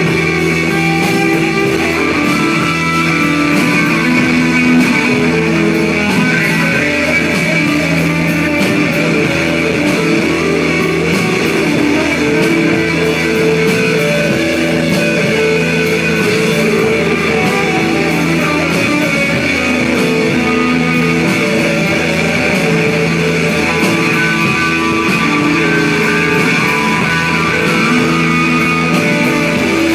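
Live psychedelic rock band playing: electric guitar over drums, the music dense and steady with held low notes.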